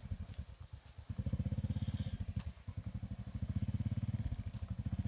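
Small motorcycle engine running at low speed, a quick even putter whose loudness swells and eases a few times with the throttle.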